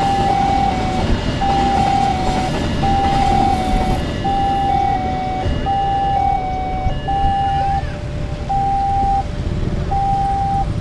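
Railway level-crossing warning alarm sounding a repeating electronic chime, a higher note followed by a slightly lower one, which later settles to single notes about a second apart. Underneath, motorcycles and cars idle waiting at the barrier, their engines picking up towards the end as the barriers lift.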